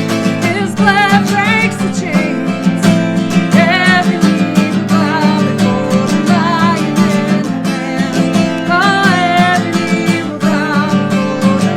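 Worship music: a strummed acoustic guitar with a wavering melody line over it.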